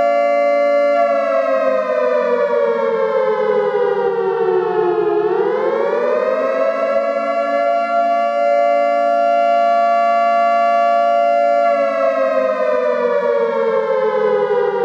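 Loud siren wail of two close pitches sounding together. It holds steady, slides slowly down in pitch over about four seconds, climbs back up within about two, holds again, then slides down once more near the end.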